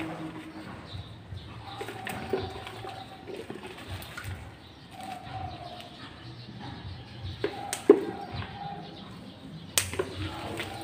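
Scissors snipping calamansi fruit from the branches: a few sharp snips spread through, the loudest two near the end.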